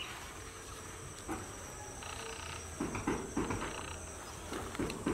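Insects trilling steadily at a high pitch. Short, lower-pitched calls break in a few times.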